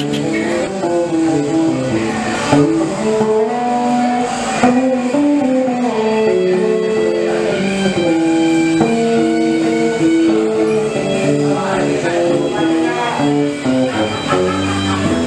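Electric guitar played through an amplifier in a blues style: a single melodic line of held and stepping notes, with a few bent notes.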